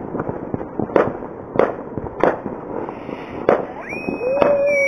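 New Year's Eve fireworks going off: a run of sharp bangs about every half second to second over a steady crackle. A long, steady wailing tone comes in near the end.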